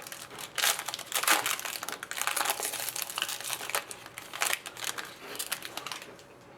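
Plastic wrapping of a pack of hockey trading cards crinkling and crackling as it is handled and torn open, in irregular bursts.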